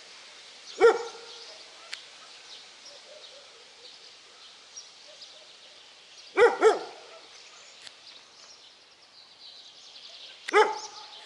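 Dog barking in short bouts: a single bark about a second in, a quick double bark past the middle, and another bark near the end.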